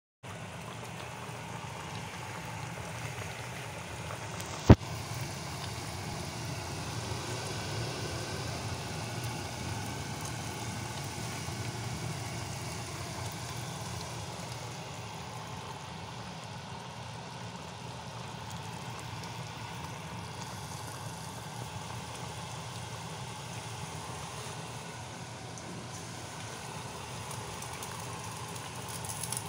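Pot of beef and green bean stew simmering on a hob, a steady hiss of bubbling liquid. One sharp click about five seconds in.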